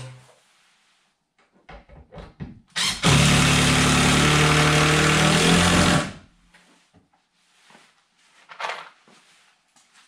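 A few knocks, then a handheld power tool runs at full speed for about three seconds starting about three seconds in, and stops abruptly.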